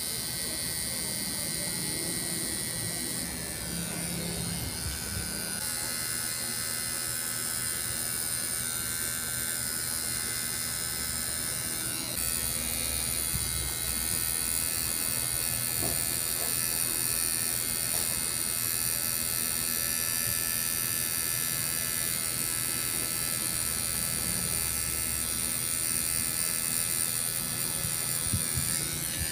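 Tattoo machine buzzing steadily as its needle lines a tattoo into skin, with a steady high-pitched whine. Its tone shifts slightly about twelve seconds in.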